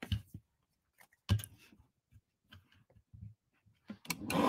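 Cardstock being handled on a paper trimmer: a few light knocks and taps as the strip is set against the guide and the arm, then near the end the trimmer's cutting blade is slid down its track with a short scraping rasp.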